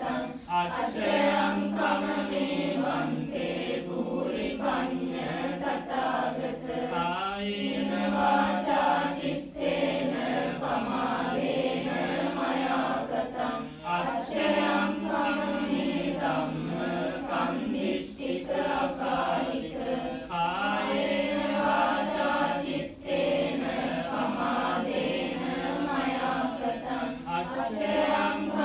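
A group of voices chanting a Buddhist devotional recitation together in unison, held notes with short breaks for breath every few seconds.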